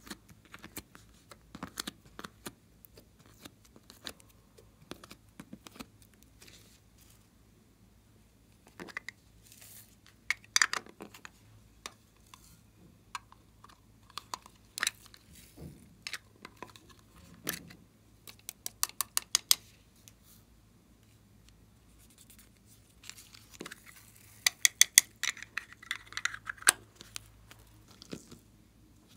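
Hands handling plastic clay containers and soft modelling clay over a glass dish: scattered sharp clicks and short rustling handling sounds, with a quick run of clicks about two-thirds of the way in and a denser cluster near the end.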